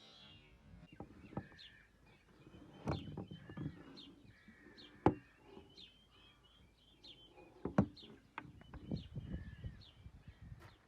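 Small birds chirping repeatedly in short high notes, with a few sharp clicks or knocks. The loudest knocks come about five seconds in and near eight seconds in.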